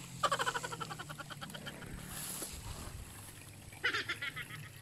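An animal calling in a rapid, pulsing trill: one call of about a second and a half, then a shorter one near the end.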